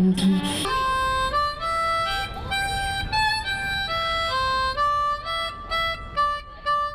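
Harmonica playing a melody of short stepped notes, coming in under a second in as a held sung note ends.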